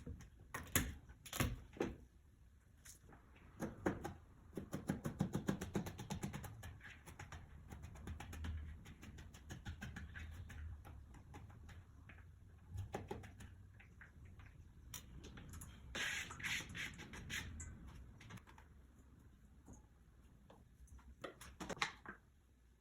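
Scattered knocks and clicks of kitchen work, with a fast run of light taps about four seconds in and another cluster of clicks later on.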